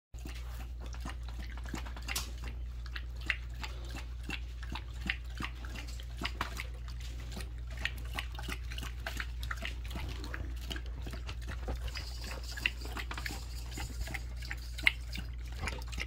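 Dog lapping water from a stainless steel pet water fountain: a fast, irregular run of wet licks and small splashes, over a steady low hum.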